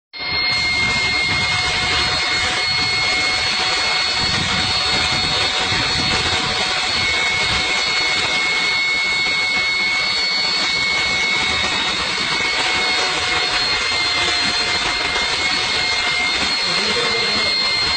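Electric motor of a banku-cooking machine running steadily as its paddle stirs thick banku dough in a large aluminium pot: a loud, even machine noise with a steady high whine, unchanging throughout.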